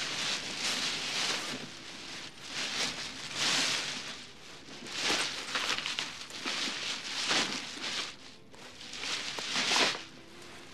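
A bag being rummaged through: rustling and crinkling that comes in repeated swells every second or two.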